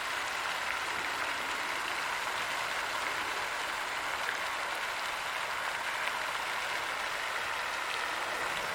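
Water fountain splashing in a steady, unbroken wash of falling water.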